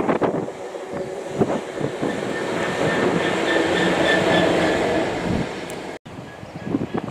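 Freightliner Class 66 diesel locomotive's two-stroke V12 engine running as it passes close by. Its steady note grows to its loudest about four seconds in, then fades. There are gusts of wind on the microphone at the start and near the end, and a brief break about six seconds in.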